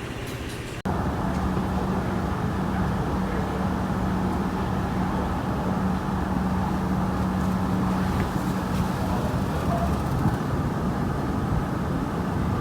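Suzuki SV1000's 1,000 cc V-twin running at a steady pace under way, holding an even note most of the way. The sound jumps abruptly louder about a second in.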